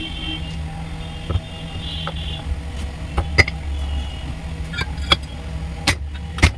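A steady low mechanical hum with a few sharp clicks and knocks: about a second in, twice near the middle, and near the end.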